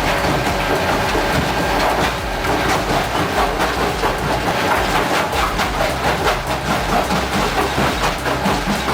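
Heavy machinery running with a steady noisy din. From about two seconds in, a fast rhythmic clatter runs through it.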